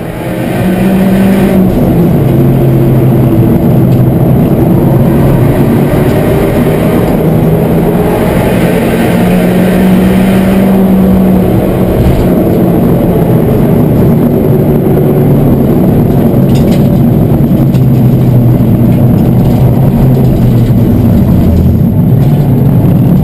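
Peugeot 207 race car's engine heard onboard while it is driven hard up a winding mountain road, its revs rising and falling again and again through the bends. It fades in over the first second.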